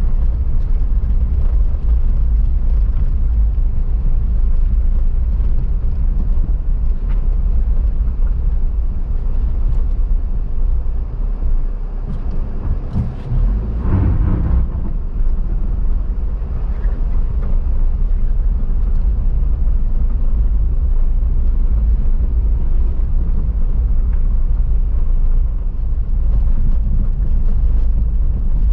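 Wind buffeting the camera microphone: a steady low rumble, with a brief louder, brighter rush near the middle.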